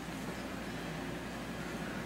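Steady room tone: an even hiss with a faint low hum underneath, nothing changing.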